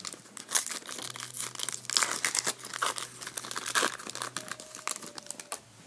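Trading-card pack wrapper being torn open and crinkled by hand, a dense run of crackling that stops shortly before the end.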